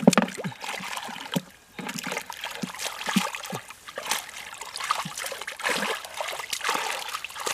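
Hands sloshing and splashing through shallow muddy water while groping for fish, in a run of irregular splashes.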